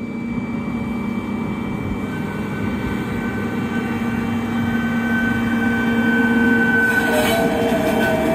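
A railroad tamper with a ballast regulator close behind, running on the adjacent track as they pass close by. The engine noise grows steadily louder, with a thin steady whine over it and a second tone joining near the end.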